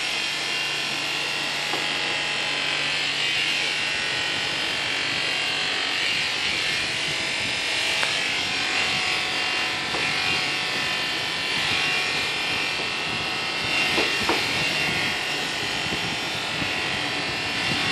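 Corded electric animal clippers running steadily as they shear a llama's thick fleece.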